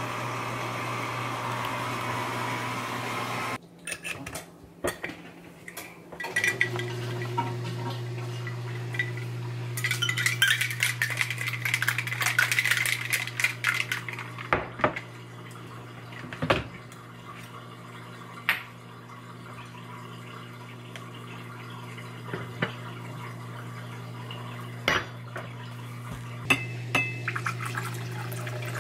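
Ice rattling inside a stainless steel cocktail shaker as it is shaken hard for a few seconds about a third of the way in, among scattered metallic clinks and knocks as the shaker is handled. Near the end, the drink is poured through the shaker's strainer cap into a glass.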